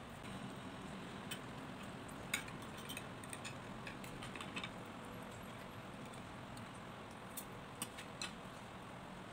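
Metal spoon and wooden chopsticks clinking and scraping against a ceramic rice bowl while eating: a scattered series of light clicks, the sharpest about two seconds in and a few more near the end as the chopsticks are set down on the bowl.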